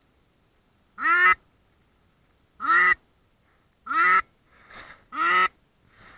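Mallard-hen quacks, four loud single quacks spaced about a second and a half apart, each sweeping up in pitch, with a fainter answering call between the last two.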